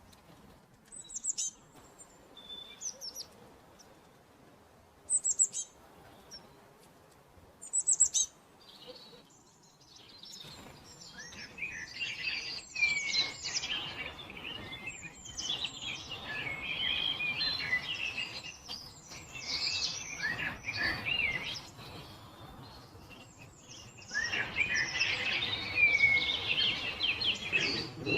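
Birds singing: a few separate sharp, high chirps at first, then from about ten seconds in a dense chorus of many birds calling over one another, growing louder near the end.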